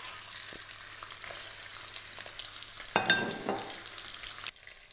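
Meaty beef bones sizzling as they sear in hot vegetable oil in a stainless steel stock pot, the first browning stage of a jus. There is a brief louder burst about three seconds in, and the sizzle cuts off abruptly near the end.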